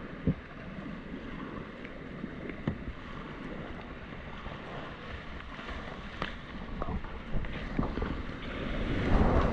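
Whitewater rapids rushing steadily around a kayak, with a few short knocks and splashes from paddle strokes. The rush grows louder near the end as the boat nears a drop.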